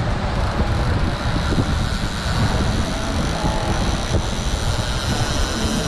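Splash Drone 3 Plus quadcopter's propellers giving a steady high whine as it climbs and flies out, over a loud, uneven low rumble.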